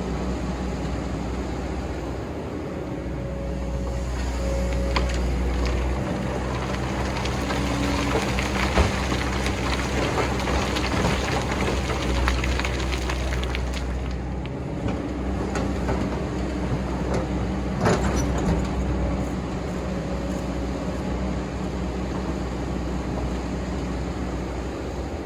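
Excavator's diesel engine running steadily, its load rising and falling as it digs sand, with a couple of sharp knocks along the way.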